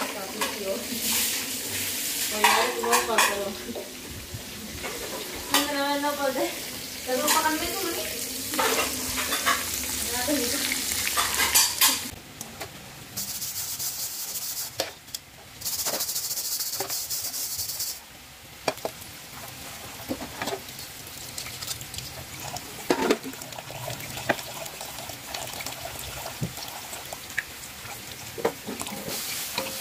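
Food frying and sizzling in a pan while it is stirred, with clinks of a utensil against the pan. The hiss gets stronger partway through. A voice is heard now and then in the first half.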